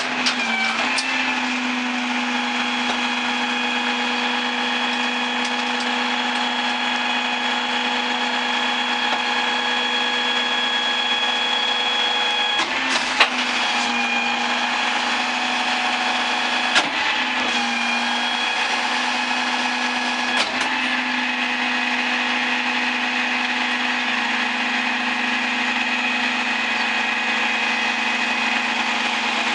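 Mack MRU garbage truck with a Leach 2R3 rear-load body running steadily at raised speed with its hydraulics working, a steady whine. A few short metallic clanks come about halfway through.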